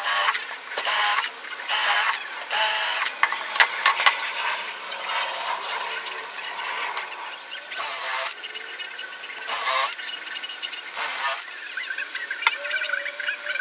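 Cordless drill run in short trigger bursts of about half a second each, working in a pine board: four bursts in the first three seconds and three more near the end, with light clicks and wood handling in between.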